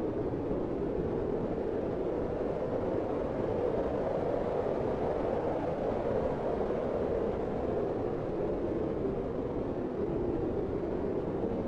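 Blizzard wind blowing steadily, a dense even rush with slow, slight swells and no distinct gusts or breaks.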